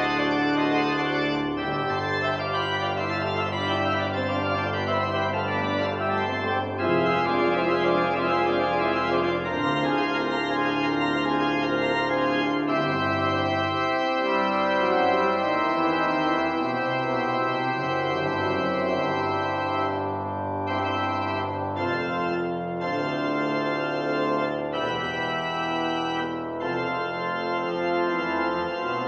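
Church organ playing sustained chords over deep pedal bass notes, the bass changing every couple of seconds and dropping away briefly around the middle.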